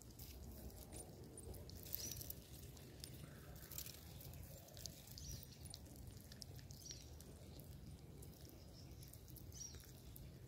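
Marmosets eating banana from a hand: faint soft clicks and smacks of chewing, with a few short high-pitched squeaks.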